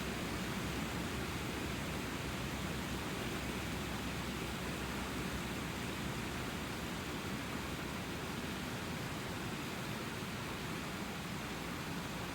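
Steady rushing of the Petitcodiac River's water, an even noise without breaks.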